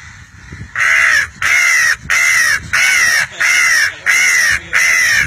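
A person imitating a crow's caw with his voice: seven loud, harsh caws in a steady rhythm, nearly two a second, starting about a second in.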